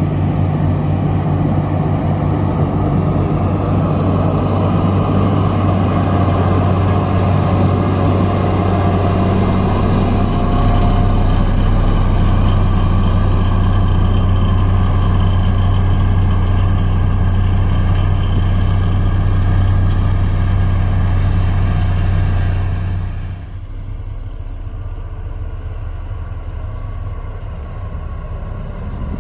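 Heavy road-construction machine's diesel engine running steadily at work. About 23 seconds in it becomes quieter and duller.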